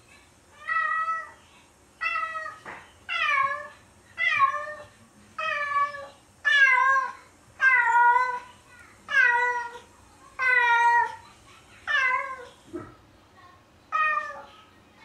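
A colourpoint cat meowing over and over, about eleven long meows at roughly one a second, each sliding down in pitch at the end.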